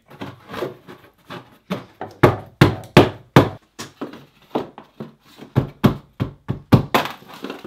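Irregular wooden knocks and taps, in two loud clusters, as a piece of Wedi foam building panel is pushed and knocked into place against the 2x4 framing of a shower niche.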